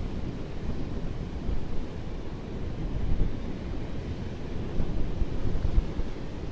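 Wind noise on the microphone, an uneven low rumble, over ocean surf washing onto the beach.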